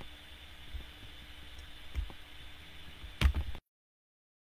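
Quiet room tone with a few soft knocks, then a sharper knock or click about three seconds in, after which the sound cuts off abruptly to dead silence as the recording stops.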